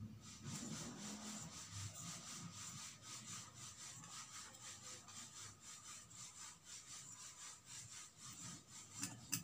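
Scissors snipping through cloth glued onto stiff buckram, trimming off the excess edge in a run of short, even snips. A louder click comes near the end.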